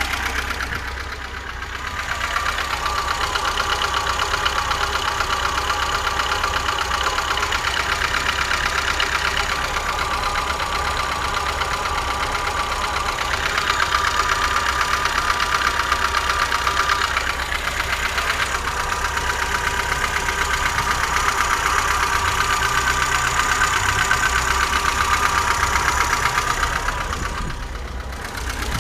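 Four-cylinder engine of a fuel-injected VAZ-2107 idling, heard at the front by the radiator, with a steady whine ("воет") over a knocking rattle. The owner cannot tell whether the racket comes from the valves, a worn timing chain or a worn camshaft; a mechanic took it for worn camshaft lobes.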